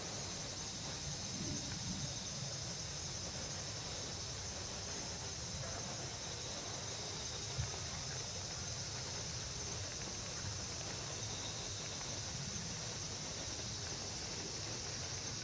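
Steady, high insect chorus, with soft low bumps and rustles as a cat's nose and whiskers brush against the camera, and one small knock about seven and a half seconds in.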